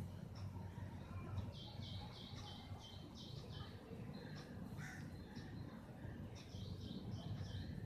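Birds calling: runs of short, high calls, several a second, coming in a few bursts, over a low steady hum.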